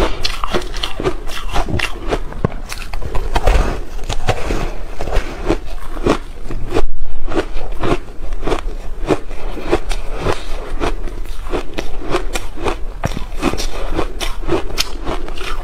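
Close-miked biting and chewing of a block of frozen slushie ice coated in matcha powder: a dense, irregular run of crisp crunches and cracks, with one much louder crunch about seven seconds in.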